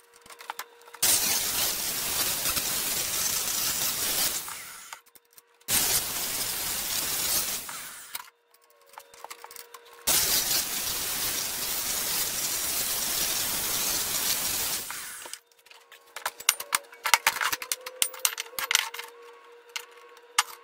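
A handheld power tool run in three bursts of several seconds each, grinding or cutting a workpiece clamped in a bench vise, each burst starting and stopping abruptly. After the third, a quick run of clanks and knocks as the work and tools are handled.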